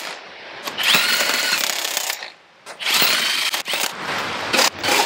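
Cordless impact wrench running lug nuts onto a Jeep Wrangler's wheel: two runs of whirring, about a second each, with a short pause between them, then a few sharp clicks near the end.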